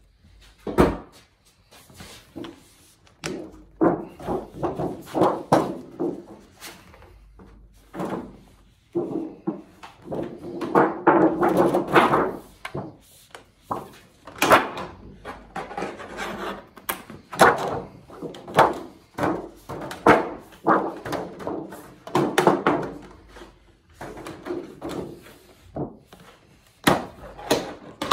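Aluminium flashing being cut with tin snips and handled: irregular crunching snips and the thin metal sheet rattling and flexing against the bench.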